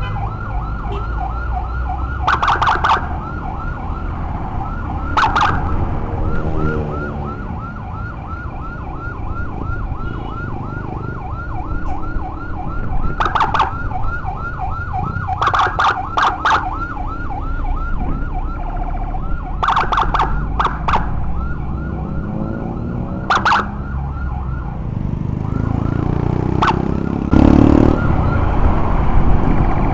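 Ambulance siren on a fast yelp, its pitch sweeping up and down several times a second without a break. Motorcycle engine and road noise run underneath. Short, sharp blasts cut in, in small groups, a handful of times.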